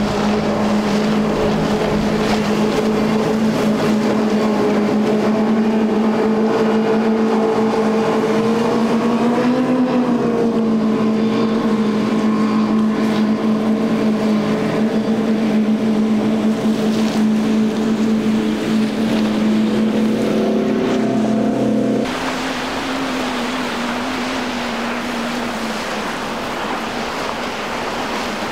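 Triple Seven Marine 627 hp supercharged V8 outboards on a center-console boat running at speed, a loud, steady engine drone that swells briefly in pitch about ten seconds in. About three-quarters of the way through it cuts abruptly to a rush of water and wind with a fainter engine.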